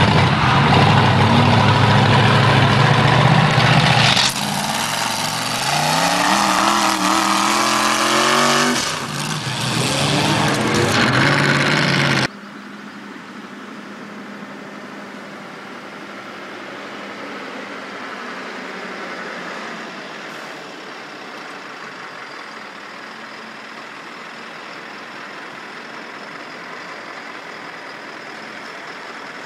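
Engine of a pickup truck mounted on tank tracks running loud, revving up with a rising pitch partway through. After an abrupt cut, a much quieter steady whine of a radio-controlled model logging truck driving on gravel.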